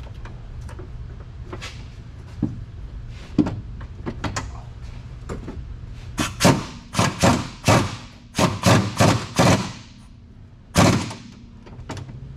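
Irregular metallic knocks and clanks of hand tools working on a car's rear bolts, coming thick and loud between about six and ten seconds in, with one more loud knock near the end.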